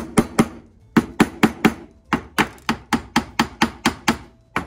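Small hammer tapping bamboo-skewer dowels home into glued holes in a wooden tray: quick light taps, about four a second, in short runs with brief pauses between them.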